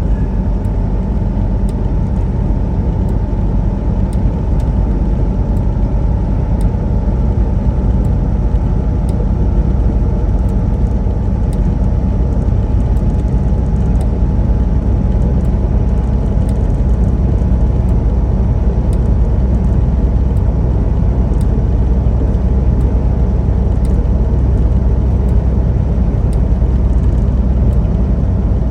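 Steady drone of a semi truck's diesel engine and road noise inside the cab, cruising at highway speed.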